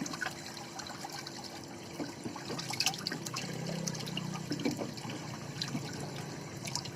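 Water trickling and sloshing, with scattered small clicks and knocks, over a steady low hum from the running ice-making machine.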